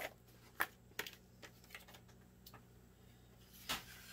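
A few faint, scattered clicks and taps of a plastic paper trimmer being lifted and set aside and card stock being handled on a table, with a slightly longer soft rustle near the end.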